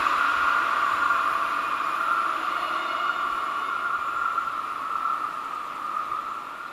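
Electric multiple unit passenger train moving away, its steady rushing running noise fading out.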